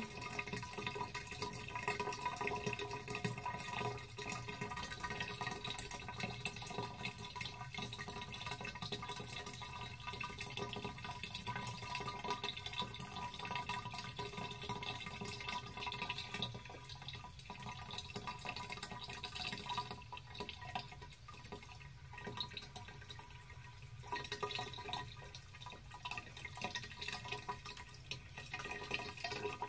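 Bathwater slowly draining out of the tub, a steady trickle of running water.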